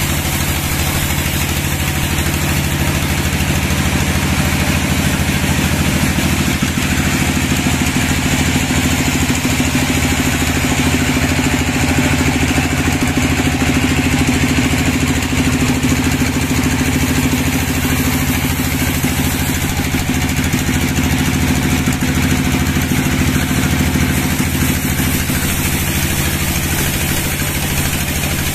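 Sawmill machinery running steadily with an even, low engine-like hum.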